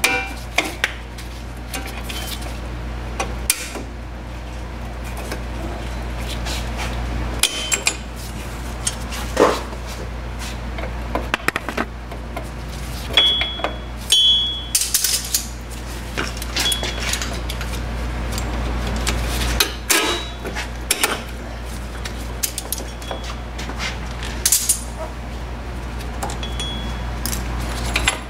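Irregular metallic clinks and clanks of hand tools and steel brake springs as the primary and secondary shoe return springs are worked off the anchor pin of a 1990 Fox-body Mustang rear drum brake. A few short ringing metal notes stand out, over a steady low hum.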